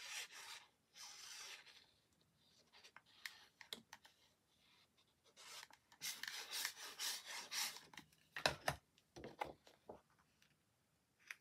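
A squeezy liquid-glue bottle's nozzle hisses and scratches as it is drawn along the edges of a card panel, laying down glue in short strokes. Near the end, sheets of paper and card are picked up and laid down with a few louder handling knocks.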